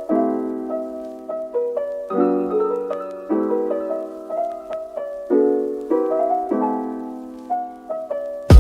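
Background piano music: a soft piece with a new chord struck about every second, each note ringing and fading.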